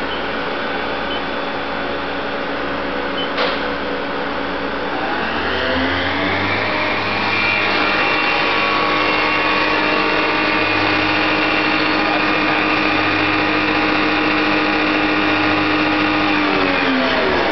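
Spindle of a 1984 Matsuura MC-500V CNC vertical mill switched on with an M3 command. After a click it spins up with a rising whine, runs at a steady pitch, and winds down with a falling whine near the end. The machine's steady hum runs underneath.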